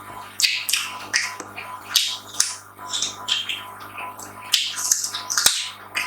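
Close-miked eating sounds: food being chewed and crunched in irregular crisp bursts, several a second, over a faint steady hum.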